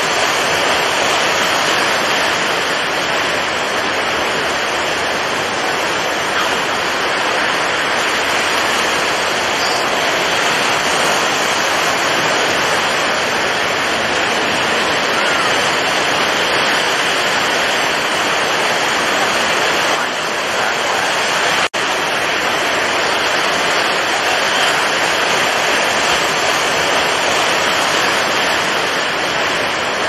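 Stormy sea: a steady, dense rush of wind-driven waves and surf, with a split-second dropout about two-thirds of the way through.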